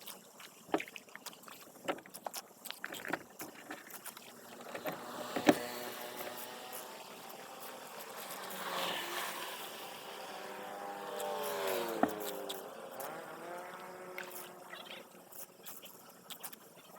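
A motor engine passing by, growing louder and then falling in pitch as it goes away, with scattered sharp knocks and clicks.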